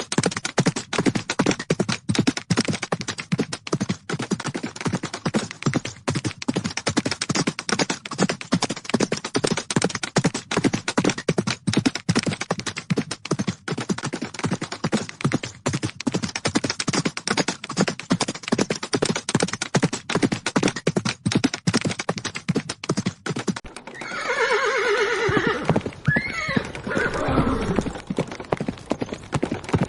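Horses galloping, a fast run of hoofbeats on the ground. About 24 s in the hoofbeats stop and a horse whinnies, one long call falling in pitch, before the hoofbeats start again near the end.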